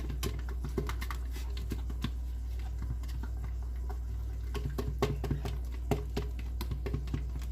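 Blended cake batter being poured from a blender jug into a bowl, with many small irregular clicks and taps over a steady low hum.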